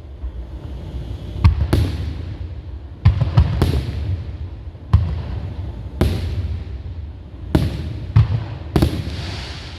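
Fireworks shells bursting overhead: about ten sharp bangs at irregular spacing, some in quick pairs, each trailed by a low rumbling echo.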